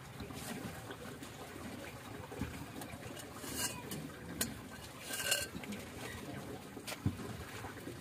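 A few scattered light metal clinks and short scrapes of a hand wrench on the wheel hub's axle nut and being taken away, with a sharp click near the end.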